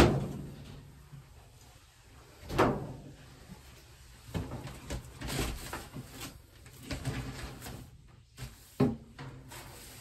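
Knocks and clatters from handling dryer vent parts behind a dryer: a sharp knock at the start, another about two and a half seconds in, and one near the end. In between, rustling and crinkling of aluminium foil flex duct as it is moved.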